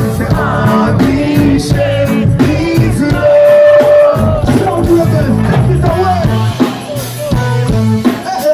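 Live reggae band playing, with bass and drums under a singer's wordless vocal lines and one long held note about three seconds in.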